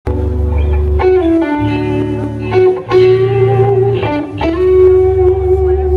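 Live instrumental band music: an electric guitar holds long melody notes over a bass line, moving to a new note about every second.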